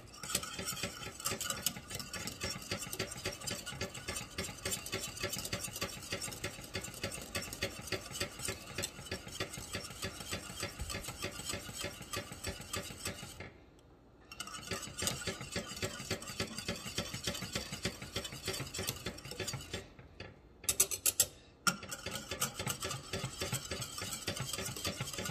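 Wire balloon whisk beating thick, cooking grits in a stainless steel saucepan: a fast, continuous rattling scrape of the wires against the pan. It stops briefly about halfway, and stops again near the end, where a few sharp knocks against the pan stand out.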